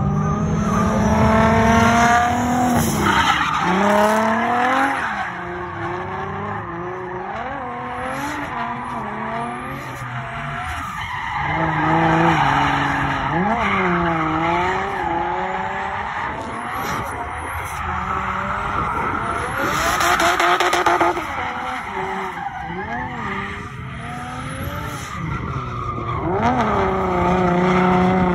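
Drift car on a run: the engine revs up and down again and again as the car slides, with tyres skidding and squealing.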